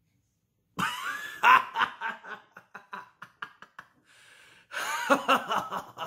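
A man bursting out laughing: a loud laugh about a second in that breaks into quick, fading pulses, a gasping in-breath, then a second loud burst of laughter near the end.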